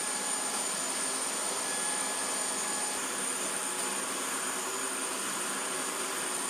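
Steady jet-turbine noise: an even rush with a thin high whistle held on one pitch.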